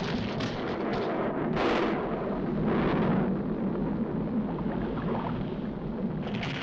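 Cartoon sound effects of an erupting volcano: a continuous deep rumble with repeated louder blasts, the biggest about one and a half and three seconds in.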